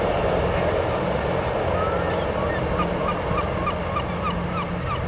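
A large vehicle engine, most likely a bus's, running steadily. From about halfway through, a quick run of short squeaky chirps comes about three a second.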